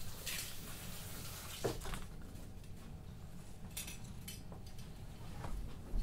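Quiet indoor room tone with a steady low hum and a few soft clicks and rustles.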